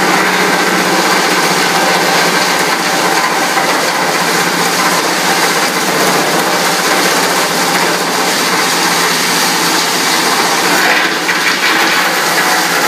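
Wood micro shredder running under load and chewing tree branches into fine chips. A steady machine hum sits under dense, unbroken rattling and crackling.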